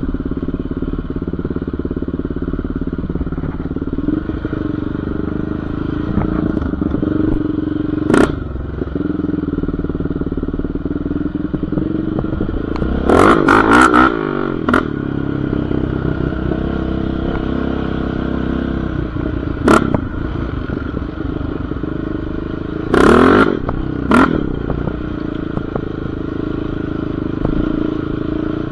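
Yamaha Raptor 700R ATV's single-cylinder engine running as it rides a rough dirt trail, its pitch rising and falling with the throttle. Several brief, loud clattering bursts break in, a cluster about halfway through and a few more singly.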